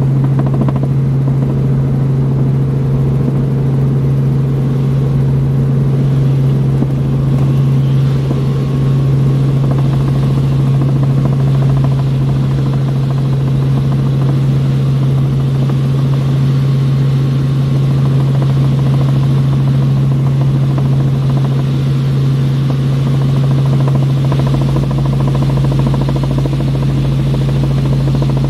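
Helicopter in flight: the loud, steady drone of its engine and rotor, a low hum at an even pitch, with a deeper rumble coming in near the end.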